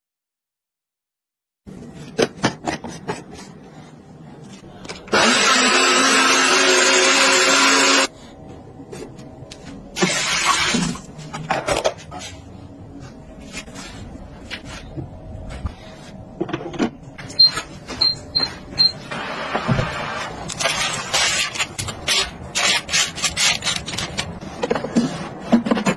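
Kitchen appliance sounds: a blender runs loud and steady for about three seconds. It is followed by clicks and knocks of containers being handled and four short electronic beeps from an appliance's control panel. Near the end there is more tapping and rustling as food is handled.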